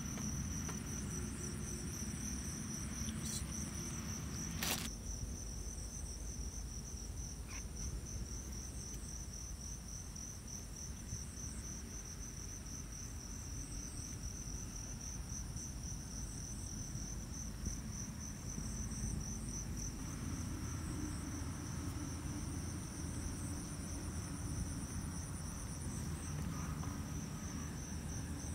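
Crickets chirring in a steady, high, finely pulsed trill over a low rumble, with one sharp click about five seconds in.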